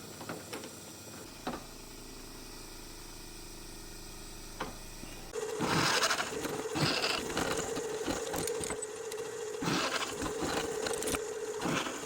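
Faint clicks and knocks, then from about five seconds in a small machine or power tool running with a steady hum and fast, uneven clicking.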